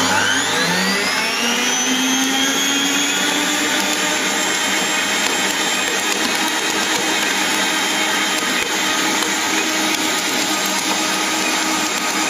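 Electric stand mixer kneading a very wet pizza dough in a steel bowl. Its motor whine rises in pitch over the first couple of seconds, then runs steady.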